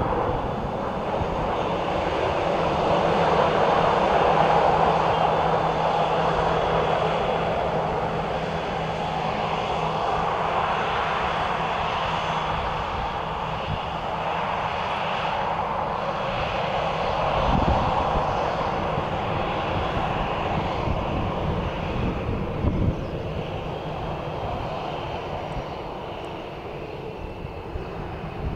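Boeing 737-800's CFM56 turbofan engines, a continuous jet roar that swells and eases over the half-minute, with a steady low hum in the first third and a couple of brief low thumps about two-thirds of the way in.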